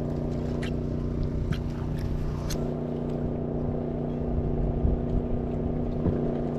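Steady engine hum with a constant low drone, plus a few sharp clicks in the first half.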